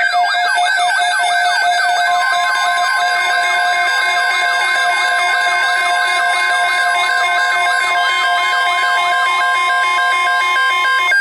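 Weather radio emergency alert tones: a siren-like tone sweeping downward about four times a second over steady beeping tones. About two seconds in, a steady tone near 1 kHz joins it, the NOAA Weather Radio 1050 Hz warning alarm that announces an alert message; it stops just before the end.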